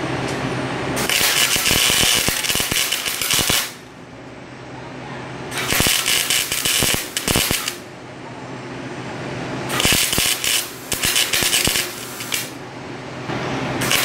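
Chicago Electric 90-amp flux-core wire welder tack-welding a small split in a steel mower deck: the arc crackles and sputters in four bursts of two to three seconds each, with short pauses between.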